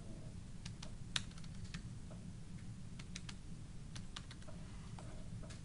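Typing on a computer keyboard: an irregular run of separate key clicks, over a low steady hum.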